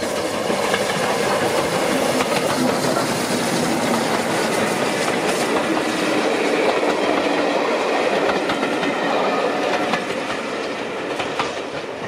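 Rebuilt Bulleid West Country class steam locomotive 34046 Braunton and its coaches passing close at speed. The noise swells as the engine goes by, then eases near the end as the coaches' wheels click over the rail joints.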